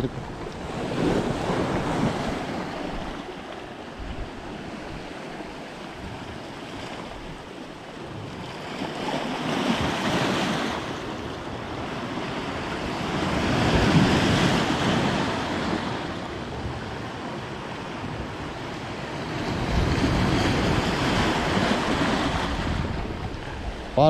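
Heavy sea swell washing in, in several slow surges that rise and fall, the strongest about halfway through, with wind buffeting the microphone.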